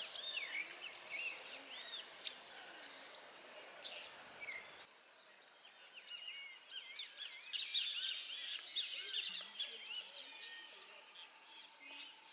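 Outdoor natural ambience of many birds chirping and calling in quick, overlapping phrases. A thin, steady high whine sits under them until about five seconds in.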